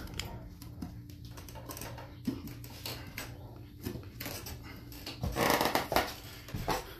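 Scattered knocks and footfalls of someone climbing up through a floor hatch on wooden steps, over a steady low hum, with a louder scuffing burst about five seconds in.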